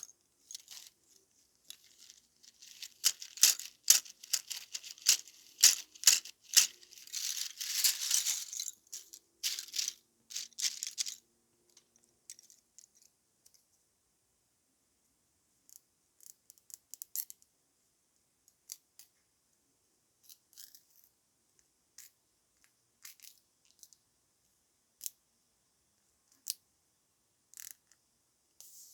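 Dry barley straw crackling and rustling: a dense run of crisp crackles for several seconds, thinning out about eleven seconds in to scattered single crackles and ticks.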